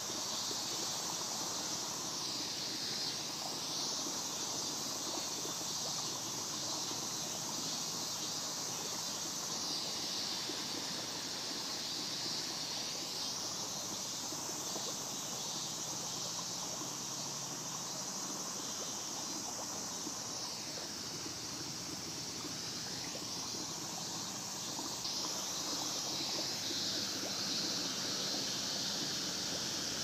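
Steady high-pitched insect chorus, an unbroken shrill hiss with no breaks, over faint outdoor background noise.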